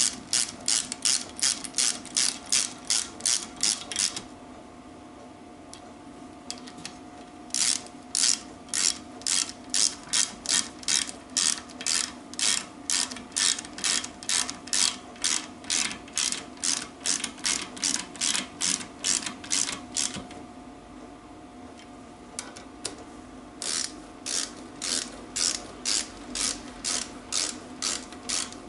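Socket ratchet clicking, about three clicks a second, in three spells separated by short pauses as the crankshaft bolts are nipped up in turn before final torquing.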